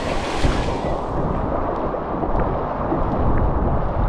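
Wind buffeting the microphone in typhoon weather: a loud, gusty low rumble, with a hiss over the top that fades out during the first second or so.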